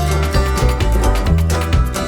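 Background music with a heavy bass line and a fast, steady beat.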